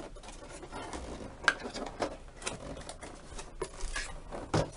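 Hands handling a cardboard box: scattered rustling and scraping of cardboard, with a few light sharp knocks.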